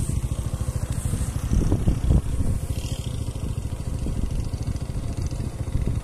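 A steady, loud low rumble with a fast pulse, with a few stronger low bumps about two seconds in.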